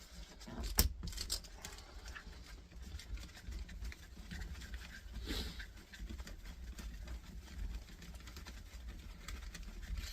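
Faint scattered clicks and light scraping of a screwdriver and small metal parts as the last spring-and-screw fixing is taken off a compressor motor, over a steady low rumble.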